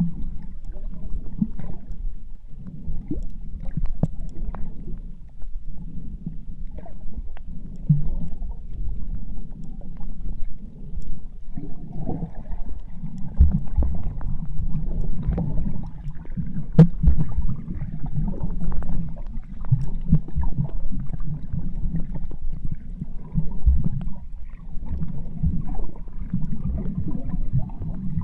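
Muffled underwater sound picked up by a submerged camera: a steady low rumble and swirl of moving water, with scattered small clicks and knocks throughout.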